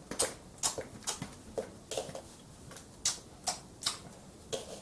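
Light clicks and taps of small plastic toy dishes and utensils knocking together, about two a second, as a child handles a toy kitchen set to feed a doll.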